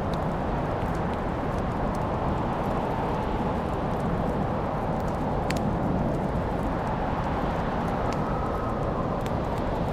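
Wood fire burning with a steady low rush of flame, crackling with a few sharp pops, the loudest about halfway through.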